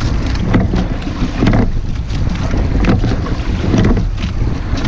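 Rowing shell under way: wind buffeting the boat-mounted microphone with a steady low rumble, water rushing along the hull, and short knocks from the oars and rigging repeating with the rowing stroke.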